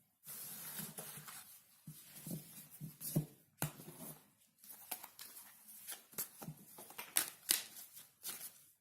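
Tarot cards being shuffled and handled: a run of irregular papery swishes and sharp snaps, which stops just before the end.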